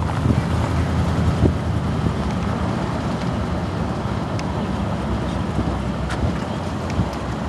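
Car driving, heard from inside the cabin: steady road and engine rumble, with some wind on the microphone and a few light clicks.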